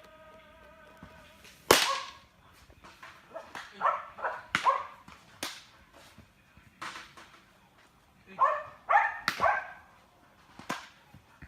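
A ball being struck or caught during baseball practice: about five sharp cracks a few seconds apart, the loudest about two seconds in, with short pitched calls around two of them.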